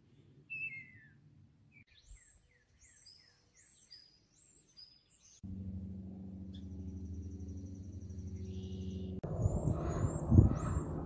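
Small birds chirping and singing in short descending notes. About five seconds in, the steady drone of a light single-engine propeller plane's piston engine begins. About nine seconds in, it gives way to louder, uneven small-helicopter noise with low thumps, birds still chirping over it.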